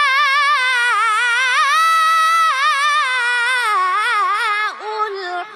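A boy's high voice in Qur'anic recitation (tajweed), drawing out the vowel of "al-asmā'" in one long melismatic note with rapid ornamental wavering, dipping briefly before it ends near the close.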